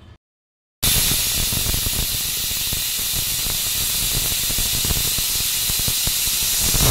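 Aluminium stovetop pressure cooker whistling: a loud, steady hiss of steam escaping past the lifted weight valve once the cooker has reached pressure. It starts abruptly about a second in and stops abruptly.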